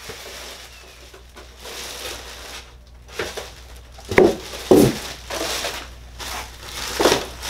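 Plastic packing wrap crinkling as styrofoam packing blocks are lifted and set down, with a few louder knocks and squeaks about four and five seconds in and again near the end.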